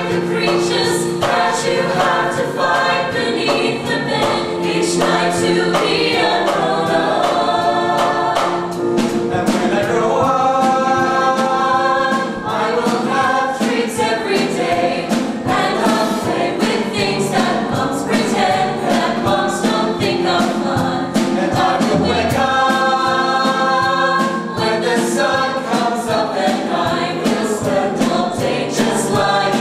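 A mixed choir of teenage boys and girls singing a musical-theatre song over an accompaniment with a steady beat.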